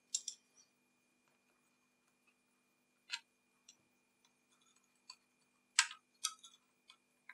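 A handful of sharp small clicks and taps, spaced irregularly, from the Sony WM-F63 Walkman's plastic case and a screwdriver being handled. A faint steady hum lies underneath.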